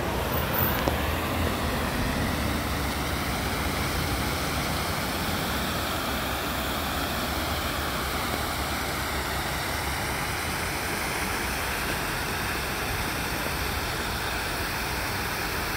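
Water pouring over a low stone weir: a steady, even rushing.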